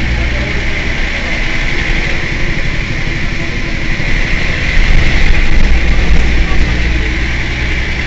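Mercedes-Benz O 405 N city bus's rear-mounted engine idling at a stop, with a steady low rumble and a constant higher hum. It swells louder about five seconds in, then settles back.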